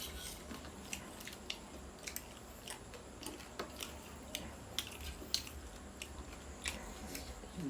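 A person chewing and biting roast chicken close to the microphone, with small mouth clicks and smacks scattered throughout.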